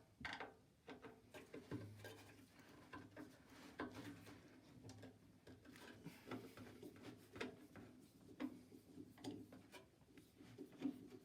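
Faint, scattered clicks and small knocks of hand tools working loose a part inside a stripped-down microwave, over a low steady hum.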